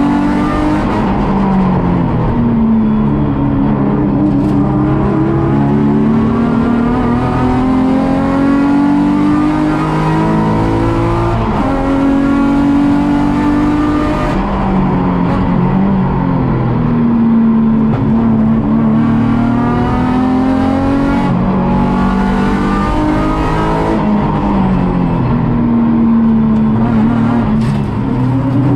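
Nissan 350Z race car's 3.5-litre V6 at racing speed, heard from onboard. The revs climb and fall repeatedly through the gears, with sudden drops in pitch at the shifts.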